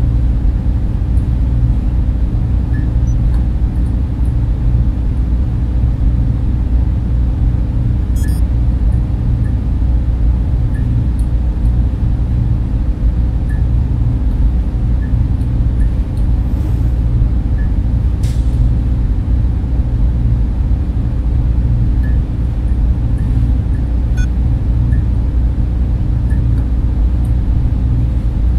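Steady low drone of server machines and ventilation fans. Faint short electronic beeps and clicks are scattered through it, with a quick run of high blips about eight seconds in and two brief hisses a little past halfway.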